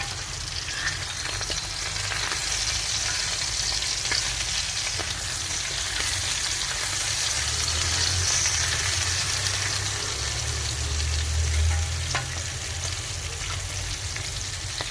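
Food frying in hot fat on a wood-burning stove: a steady sizzle with scattered crackles and pops.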